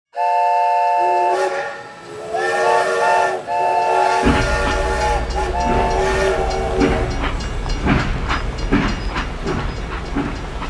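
A steam locomotive's chime whistle blowing a chord of several notes in a few long blasts. From about four seconds in, a low rumble and a steady beat of knocks join it as the train runs.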